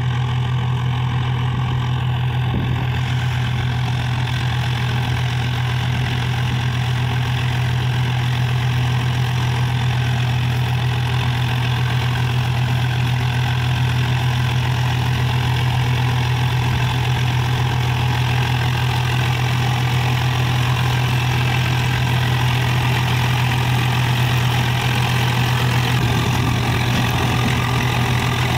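Swaraj 744 tractor's three-cylinder diesel engine running at a steady speed, driving a tractor-drawn straw reaper through wheat stubble.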